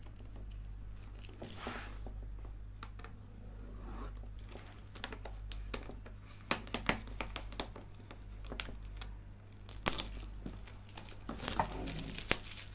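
Plastic shrink-wrap film being cut, torn and peeled off a cardboard box, crinkling and crackling in irregular bursts that grow busier about halfway through and again near the end.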